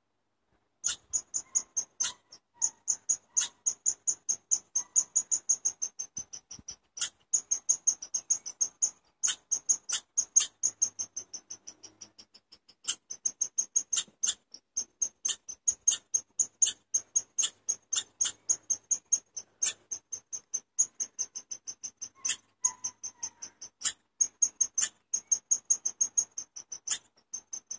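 Chipmunk calling a rapid, steady series of short, high-pitched chirps, about three to four a second, with a short lull about halfway through. This is the repeated chip call that chipmunks give as an alarm.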